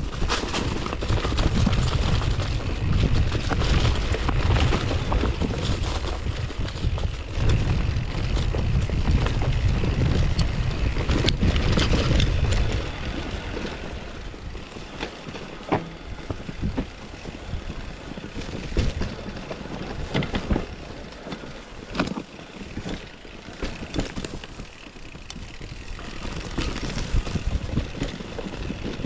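Mountain bike ridden down a dirt enduro trail: tyres rolling over the ground and the bike rattling and knocking over bumps, with wind buffeting the microphone. The wind rumble is heavy for about the first half, then eases, leaving the clatter and knocks clearer.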